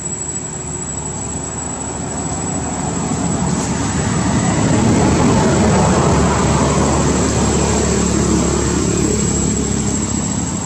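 A distant engine, heard as a steady rumble that swells over a few seconds and then slowly fades as it passes. A thin, steady, high-pitched insect drone runs underneath.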